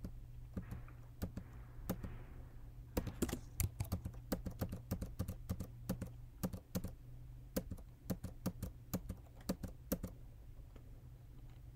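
Computer keyboard keys being pressed at an irregular pace, single keystrokes and short runs, sparse at first and more frequent from about three seconds in, over a low steady hum.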